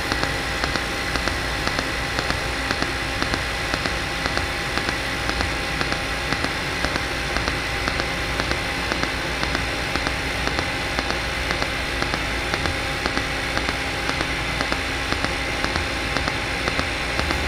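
Mechanized TIG welding arc hissing steadily, with a regular tick a few times a second as the current pulses in step with the torch's oscillation.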